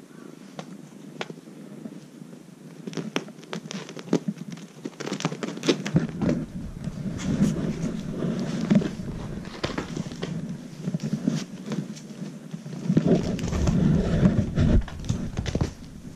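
Irregular rustling, scratching and tapping from handling and play with a kitten and a cat-teaser toy on tatami mats, with the camera brushing against clothing; it grows heavier in the second half, loudest a couple of seconds before the end.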